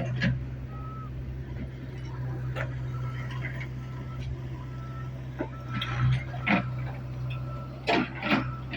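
A vehicle engine running steadily, with short high beeps repeating and a few sharp knocks in the second half.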